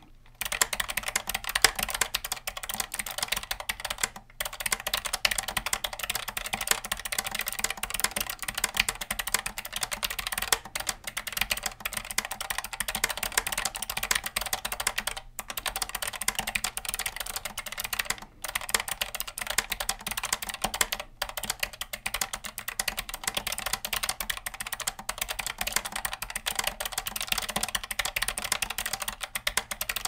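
Continuous typing on a Keychron K7 ultra-slim mechanical keyboard with Gateron low-profile blue switches: a dense, rapid stream of key clicks and keystrokes, broken by a few brief pauses.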